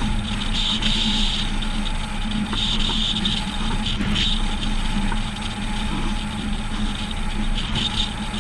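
Steady road and wind noise of a vehicle under tow at road speed, with a low even hum and a high hiss that comes and goes every second or two, heard through an outside-mounted microphone buffeted by wind.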